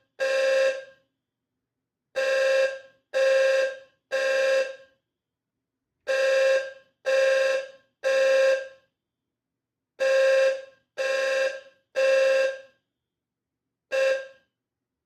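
Eaton Wheelock Eluxa ELFHNW-N low-frequency fire alarm horn sounding its 520 Hz tone in the temporal-three evacuation pattern: three half-second blasts, a pause, then three more, over and over. Near the end one last, shorter blast sounds and the horn stops.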